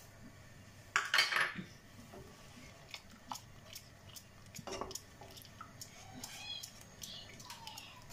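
Wooden spatula stirring milk in a pot, scraping and knocking lightly against the pan. The loudest scrape comes about a second in, and a scatter of small clicks follows.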